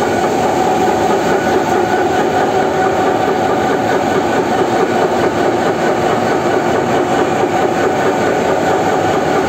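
Nash CL 9003G cast-iron pump and its large electric drive motor running steadily on test, a loud even drone with a steady hum in it and no change in speed.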